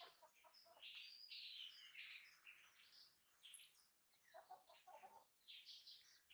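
A baby monkey crying in a run of short, high-pitched squeals, with a brief pause about four seconds in, as it begs for the milk bottle held out to it.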